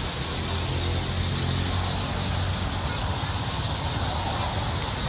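Steady street background noise: a low, constant engine-like hum under an even hiss, typical of a vehicle running or passing traffic.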